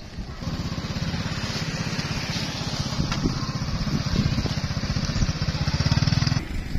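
A small engine running with a fast, even putter. It cuts off abruptly about a second before the end.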